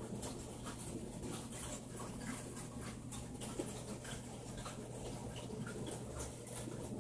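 Steady low electrical hum of aquarium equipment, with faint irregular ticks and patter over it.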